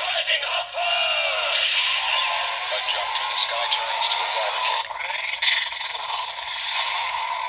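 DX Metsubou Jinrai Force Riser toy belt playing its electronic transformation sound: a synthesised announcer voice over music, thin and without bass from the toy's small speaker.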